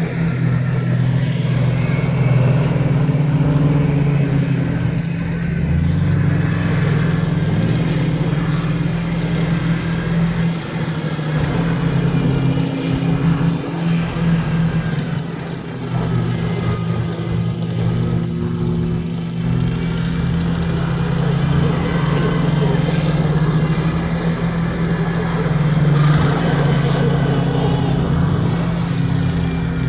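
Toyota truck's engine revving up and down as it spins on an icy lot, over a steady engine drone.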